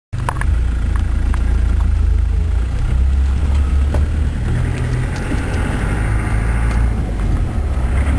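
Land Rover 4x4 driving over a rough dirt road, heard from inside the cab: a loud, steady low rumble of engine and tyres, with a few sharp knocks and rattles.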